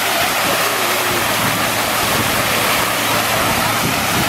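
Splash-pad fountain: many water jets arcing up and falling onto wet paving and a central basin, making a steady, loud hiss and splatter of falling water.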